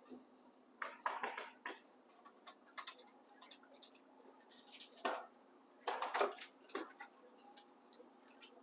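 Dishes and utensils being handled: clusters of short clinks and knocks about a second in and again around five and six seconds.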